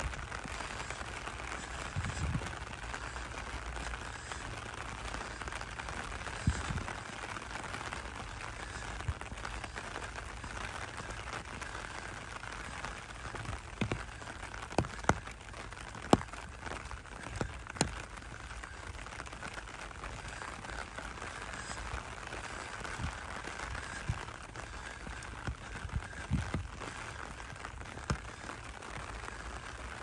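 Steady rain falling on wet pavement and grass, a continuous hiss. Scattered sharp ticks stand out over it, several close together around the middle, with a few soft low thumps.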